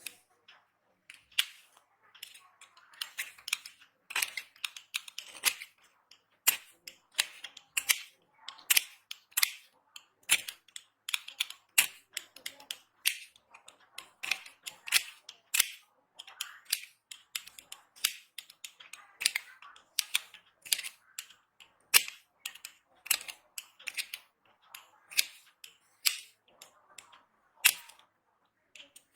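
Dry bar soap being cut and crushed: a run of sharp, crisp cracks and clicks, several a second, coming in short clusters with brief pauses.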